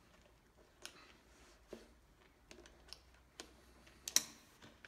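Light, scattered clicks and taps of a small homemade hitch-pin hook and hands working a rubber bellows boot onto the spindle housing of an Ammco brake lathe, with one sharper click about four seconds in.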